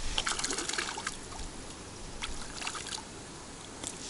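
Small water splashes and trickling from a hooked crucian carp being played at the surface. The splashes come thickly for about the first second, then thin out to faint trickling and odd drips.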